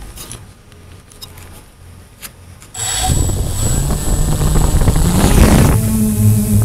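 Walkera QR X350 quadcopter's motors and propellers starting up suddenly about three seconds in, loud and climbing in pitch as it throttles up to lift off, then settling into a steady whir, with the propeller wash blowing on the onboard microphone.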